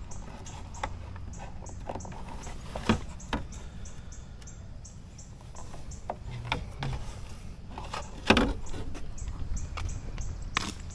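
Scattered light clicks and knocks of plastic wiring connectors and parts being handled while a harness plug is worked loose, the loudest knock about eight seconds in.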